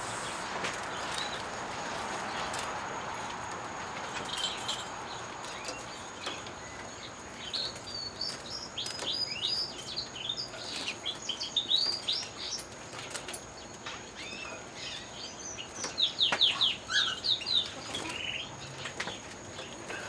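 Canaries singing: quick, high trilled song phrases that grow busier about halfway through and are loudest near the end, with a few sharp clicks. A soft rushing noise fades out over the first few seconds.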